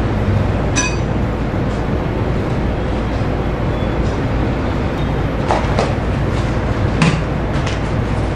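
Takyo TK1500 electric shredder running, a steady drone from its motor and spinning cutter disc. A few sharp metallic clinks sound over it, about a second in, twice near six seconds and again at seven.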